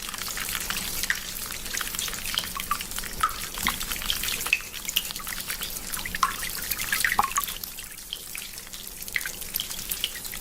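Urination sound effect: a stream of liquid trickling into toilet water, with many small drips.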